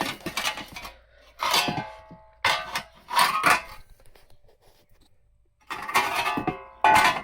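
Pieces of a rusted, cut-out sheet-steel jacking point being handled and knocking against metal: about six clanks, each with a short metallic ring, with a pause in the middle.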